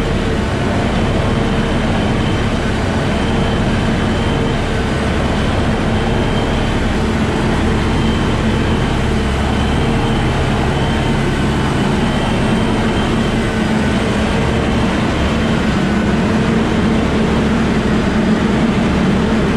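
Tunnel shotcrete spraying rig at work, its engine and concrete pump running with a steady, even hum while the boom sprays concrete onto the rock wall.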